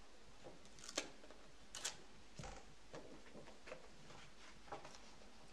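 Faint crackling and a few sharp ticks as the backing strip is picked and peeled off double-sided tape on a stiff plastic sheet, the clearest ticks about one and two seconds in.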